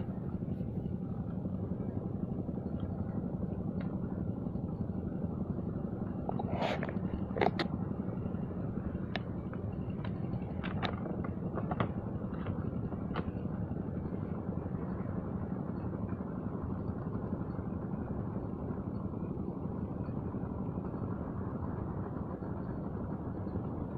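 A motor running steadily with a constant low hum. A few faint clicks and taps come in about six to thirteen seconds in.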